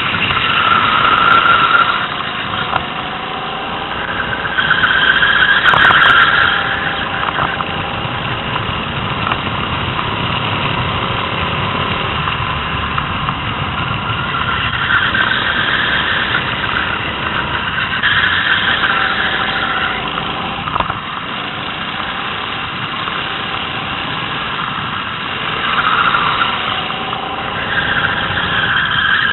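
Rental go-kart engine heard from the driver's helmet camera, running hard with its pitch rising and falling as the kart speeds up and slows through the corners. It is loudest near the start, around five seconds in and near the end.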